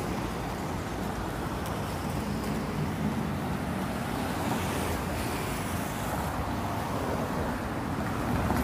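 Steady road traffic noise from cars driving along a city street, heard from the sidewalk.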